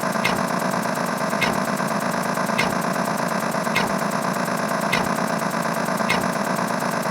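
A steady mechanical hum, like an engine or machine running, with a short high chirp repeating about once a second.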